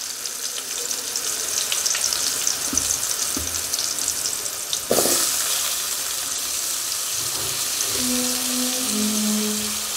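Cubes of elephant foot yam sizzling in hot oil with curry leaves in a shallow metal pan: a steady hiss with small crackles. There is a single knock about five seconds in, as more pieces go into the pan.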